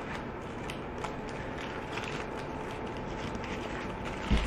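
Aluminium foil burger wrapper crinkling and rustling in the hands as it is unwrapped, small irregular crackles over a steady background hum, with a dull thump near the end.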